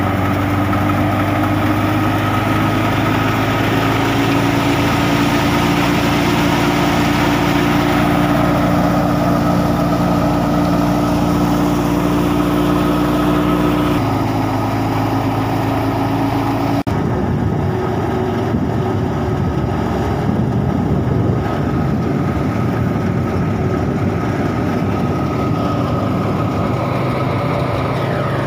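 Wheat thresher driven by a Massey Ferguson 260 tractor, running steadily: a diesel engine drone mixed with the whirr of the thresher's belts and drum. The sound changes abruptly about halfway through and again a few seconds later.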